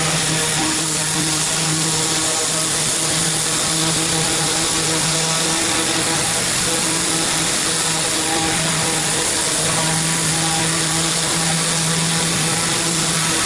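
Hot-water pressure cleaner at work: the Honda GX630 V-twin petrol engine running steadily under a loud, continuous hiss of the high-pressure water jet, the engine hum wavering as the load changes.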